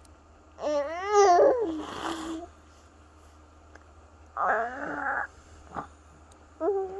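Baby babbling in three wavering, pitched calls, the first one running into a wet, spluttering lip-blow: the raspberry "fart" sounds the baby is making.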